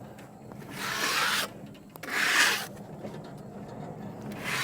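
Two brushing, rubbing strokes across rough sawn oak, about a second apart, with a third beginning near the end.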